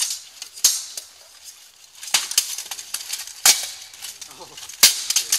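Steel longswords and plate armour clashing in a full-contact bout: a series of sharp metallic clangs at irregular intervals, with a quieter stretch about a second in.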